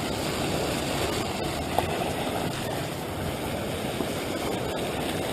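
Steady low rumbling background noise with no distinct events, and a faint click about two seconds in.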